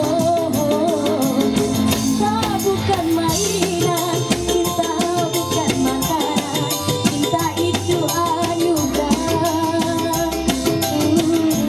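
Music: a song with a singing voice over a steady percussion beat.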